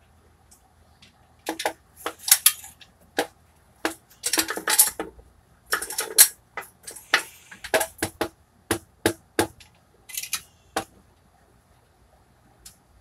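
Irregular metallic clinks and clanks, some in quick rattling runs, start about a second and a half in and stop near the end.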